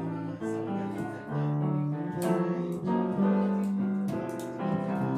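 Instrumental break of a slow ballad: piano-like keyboard playing held chords and melody notes, with a few sharp high strokes from about two seconds in.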